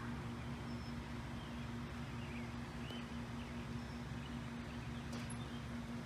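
Outdoor ambience: a steady low hum throughout, with a few faint, short bird chirps.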